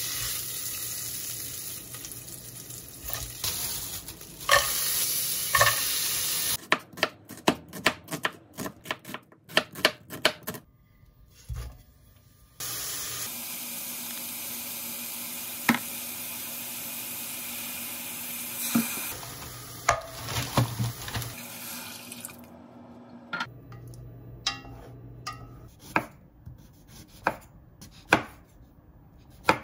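Meat sizzling in a stainless steel pot as wooden chopsticks stir it, then a quick run of sharp taps. Onion and other vegetables with chili powder then sizzle in the pot. Near the end a kitchen knife cuts sweet potato on a wooden cutting board in spaced strokes.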